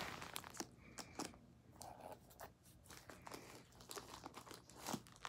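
Grey plastic mailer bag crinkling and rustling in a string of short, faint crackles as it is handled and pulled open.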